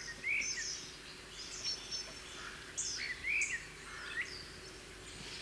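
Birds in trees giving short chirps and whistles, scattered irregularly through, over a faint steady hiss.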